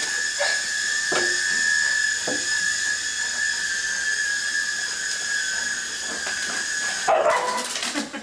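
Small toy RC helicopter's electric motor and rotors whining steadily at a high pitch, with a few faint knocks along the way. The whine stops about seven seconds in, and a louder noisy burst follows.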